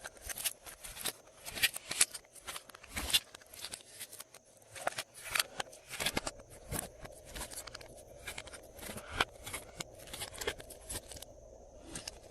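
Glossy slime being kneaded and stretched by hand, making rapid, irregular sticky clicks and pops that thin out near the end.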